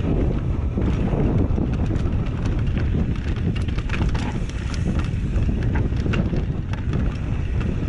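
Wind buffeting the camera microphone over the rumble of mountain bike tyres rolling down a dirt trail, with many irregular clicks and rattles from the bike as it goes over roots and bumps.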